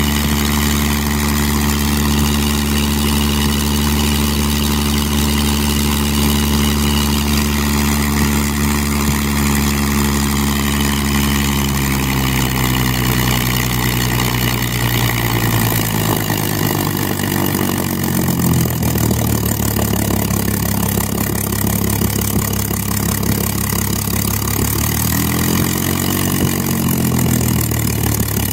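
Spitfire Mk XIV's Rolls-Royce Griffon V12 aero engine running on the ground, first at a steady idle, then revving up about twelve seconds in, with the revs dipping and swelling twice more in the second half.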